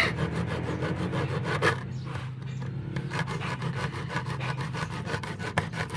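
Hacksaw blade sawing through a metal finger ring in quick, even back-and-forth strokes, easing off for a moment about two seconds in before carrying on.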